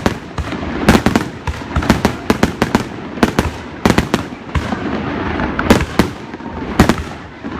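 Fireworks going off: many sharp bangs at irregular intervals, at times several a second, with a continuous crackle and rumble between them.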